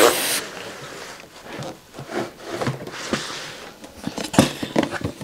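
Large cardboard box being opened and handled: a short loud rasp at the very start, then rubbing and scraping of cardboard with scattered light knocks.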